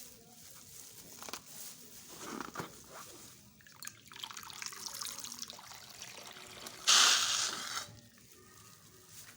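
Wet, liquid sounds of slime ingredients being poured and mixed, with a louder hissing pour or splash lasting about a second near the end.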